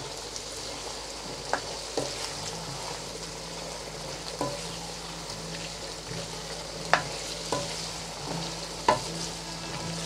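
Diced potatoes, green peas and spiced chicken mince sizzling in oil in a non-stick kadai as a spatula stirs them. The spatula scrapes and knocks against the pan about six times, loudest about seven and nine seconds in.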